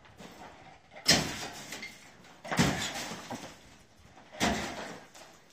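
Old plaster and metal lath being broken out of a wall by hand: three sharp crashes about a second and a half apart, each trailing off briefly.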